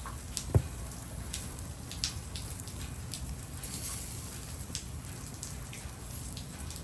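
Rain falling, with individual drops striking a surface at irregular intervals over a steady hiss, and one louder knock about half a second in.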